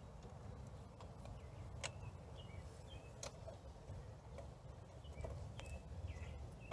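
Faint outdoor background: a low steady rumble with birds chirping now and then, and a few small metallic clicks as a bolt is threaded by hand into a cast-aluminium motorcycle master cylinder mount.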